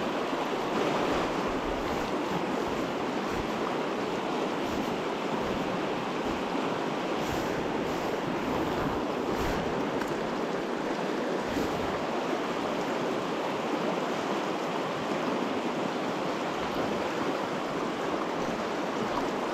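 Fast, shallow river water rushing steadily over a rocky bed, in a rapid stretch the angler is wading; a steady, even rush with no let-up.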